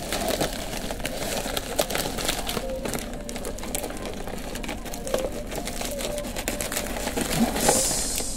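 A package being opened and handled by hand: continuous crinkling and rustling with many small irregular clicks, and a louder rustle near the end.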